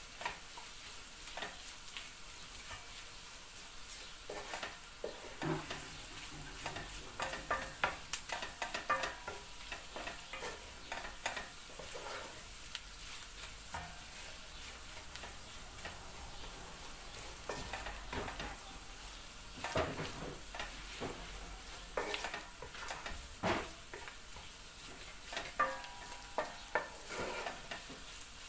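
Tomato-and-pepper paste sizzling in hot oil in a cooking pot, with a steady hiss. A utensil stirs and scrapes against the pot in bursts, most busily in the first half and again near the end.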